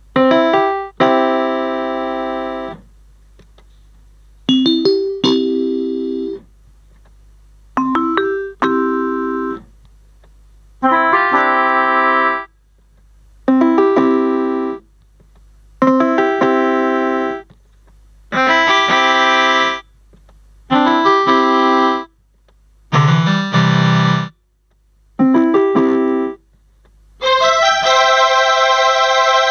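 MK-2117 electronic keyboard playing short phrases of notes and chords, about ten of them with brief pauses between, and a brighter held chord near the end.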